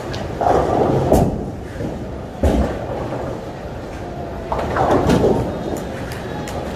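Bowling alley din: heavy bowling balls rumbling and knocking against each other in the ball return, with three louder bursts of clatter.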